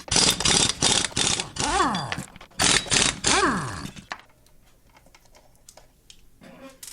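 Screws being backed out of a plastic radio cabinet with a screwdriver: quick runs of sharp clicks with a couple of squeaks that slide down and up in pitch, stopping about four seconds in.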